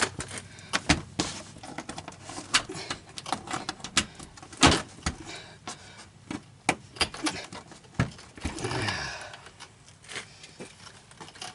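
Scattered sharp clicks and knocks of plastic trim panels being handled and plastic retaining clips snapped into place, with one louder knock about four and a half seconds in.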